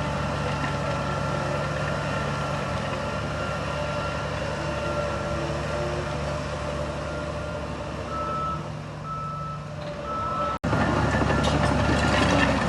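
Heavy diesel construction machine running with its reversing alarm sounding: a high steady tone that turns into short, evenly spaced beeps. About ten seconds in the sound cuts off abruptly and returns with the engine louder.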